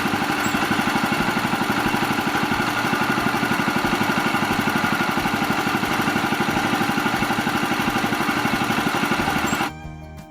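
Woodland Mills HM130MAX portable sawmill running steadily, its small gas engine pulsing fast and even as the mill saws through a log. About a second before the end it cuts off abruptly and country-style fiddle music takes over.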